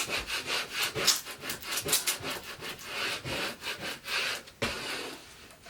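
Quick, repeated rubbing and scraping strokes against a hard surface, several a second at first, then a few slower, longer scrapes that fade out.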